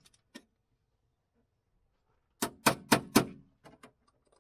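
Hammer striking a small metal mounting bracket on the inner fender: a few faint taps, then four quick sharp blows about two and a half seconds in, followed by a handful of lighter taps.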